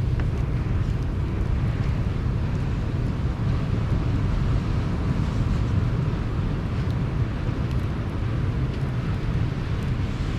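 Sea surf washing in steadily with a deep rumble, mixed with wind buffeting the microphone and a few faint crackles from a campfire.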